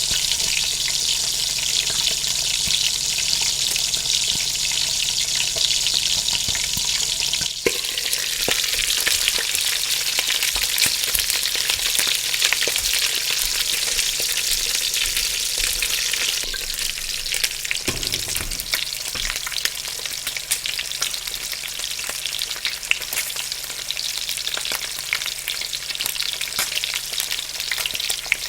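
Food sizzling in a frying pan: a steady hiss dense with small crackles and pops. A sharp click comes about a quarter of the way in, and the sizzle eases slightly just past halfway.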